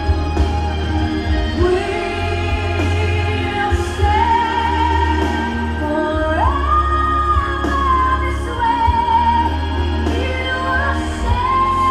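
Recorded pop song: a singer holds long, wavering notes, leaping up to a higher held note about six seconds in, over a steady low bass.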